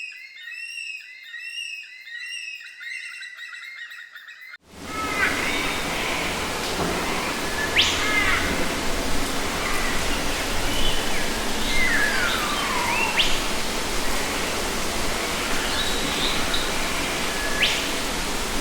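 Birds chirping in a quick, repeated pattern. About four and a half seconds in, this cuts off abruptly into a loud, steady rushing noise, over which single birds give a few sharp whistled calls and one long falling whistle.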